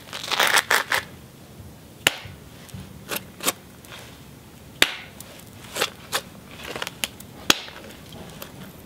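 Knapping hammer (bopper) striking the end of a cherty mudstone cobble: about a dozen sharp, irregular clicks, a quick cluster in the first second and then single strikes every half second or so. These are the blows that take a small test flake off the rock.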